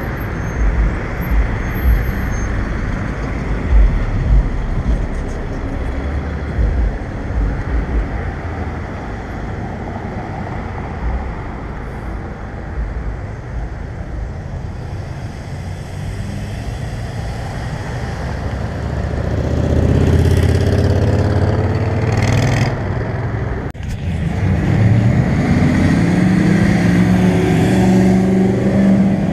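Road traffic through an intersection: car and truck engines and tyre noise. About two-thirds of the way in it grows louder as vehicles pull away and accelerate, their engine pitch rising.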